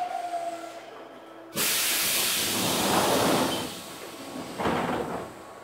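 Compressed air hissing from the pneumatic system of a Keihan 2600 series train: a loud hiss that starts suddenly about a second and a half in, runs for about two and a half seconds and fades, then a second, shorter hiss near the end.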